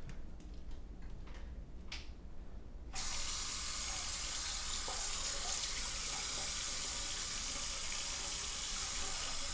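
Tap water running into a bathroom sink: a steady hiss of flowing water that starts suddenly about three seconds in.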